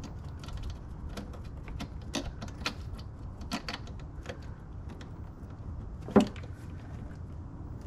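Scattered light clicks and knocks of hands working plastic parts in a car's engine bay while refitting an electrical connector, with one sharper knock about six seconds in, over a steady low background rumble.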